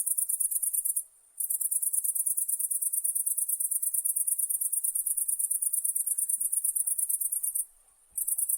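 Night insect trilling: a very high-pitched, rapidly pulsing buzz in long runs, breaking off briefly about a second in and again near the end.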